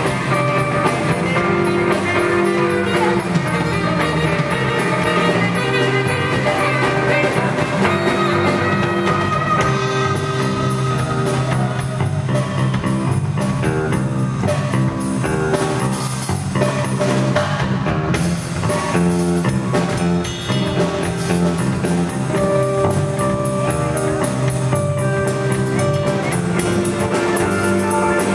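Live band music: drum kit, electric bass and guitar, with a tenor saxophone playing at the start.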